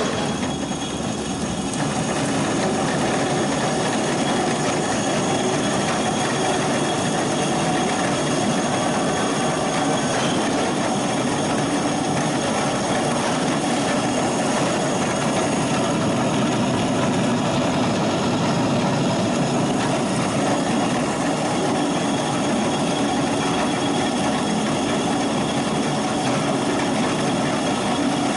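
Motor-driven stone mill running steadily while it grinds dog food, a continuous even grinding and machine hum.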